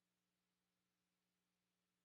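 Near silence: only a very faint steady electrical hum and hiss in the broadcast feed.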